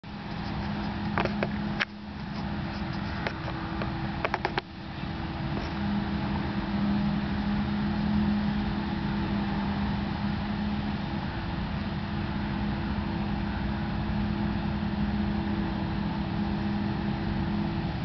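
Steady engine drone of a forage harvester and a tractor with a silage trailer at work in a maize field, holding an even hum. A few sharp clicks come in the first five seconds.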